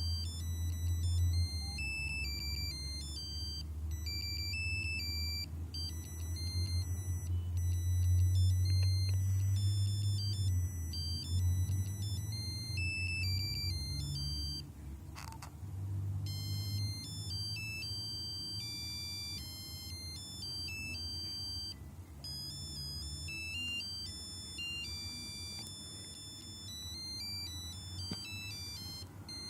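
Nokia 5125 mobile phone playing its monophonic beeping ringtone melodies, quick high notes stepping up and down. About halfway through the tune breaks off for a second with a click before the melody resumes.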